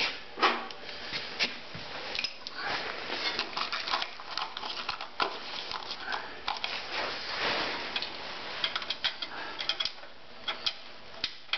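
Hands working on metal snowthrower parts: irregular small clicks and clinks with scraping and rustling as parts are picked up and fitted at a shaft bearing.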